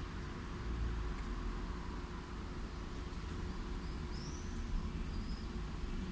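Steady low rumble of light city traffic, with a few short, high bird chirps a little past the middle.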